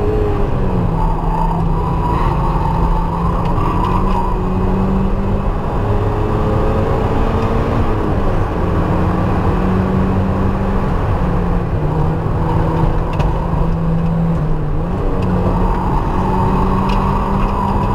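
A Mazda's engine heard from inside the cabin, running hard at high revs through a track lap. Its pitch dips and climbs back a few times as the driver lifts and shifts, over steady wind and road noise.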